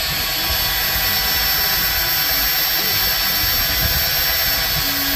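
Cordless drill running steadily at speed, spinning a quick-release bicycle pedal's spindle while a needle file is held against it, filing down the spindle that had seized.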